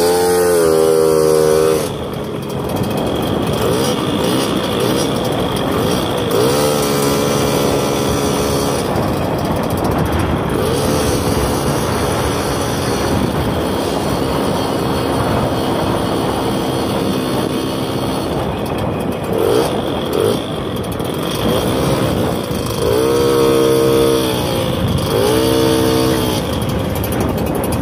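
Small motorbike engine running under way, revving up several times so its pitch climbs and then holds, most strongly near the start and twice near the end.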